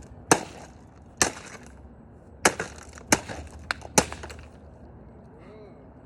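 A coffee maker being smashed: six sharp, loud blows over about four seconds, each followed by a brief clatter of breaking parts.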